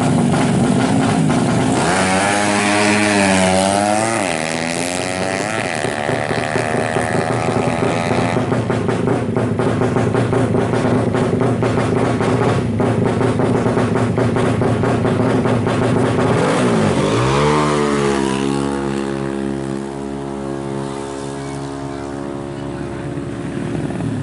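Suzuki Smash motorcycle's 130 cc single-cylinder four-stroke engine running through an AHRS exhaust. It revs up and back down about two seconds in, runs steadily, then revs up again around seventeen seconds and settles at a steady speed.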